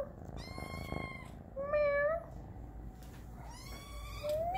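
Domestic cat meowing four times in short pitched calls, the second the loudest and the last rising in pitch near the end.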